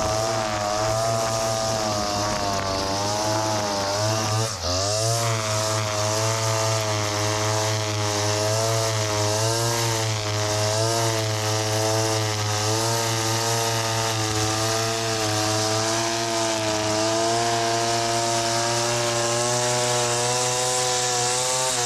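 Petrol string trimmer (whipper snipper) running at high revs while cutting grass, its engine pitch wavering up and down with the throttle. The revs briefly drop about four and a half seconds in, then climb back.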